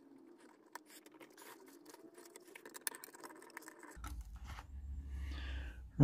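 Faint scraping and scattered small clicks of a plastic pry tool working around the edge of a lamp base, peeling its glued-on cover away. A low rumble comes in about four seconds in.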